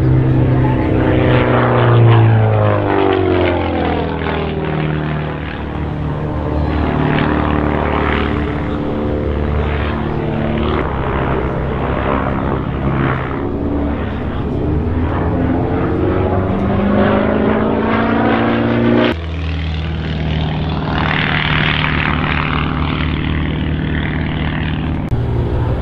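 Aerobatic biplane's propeller engine running hard through manoeuvres, its note falling and rising as the plane swoops and turns. About two-thirds of the way through, the note jumps abruptly to a lower pitch.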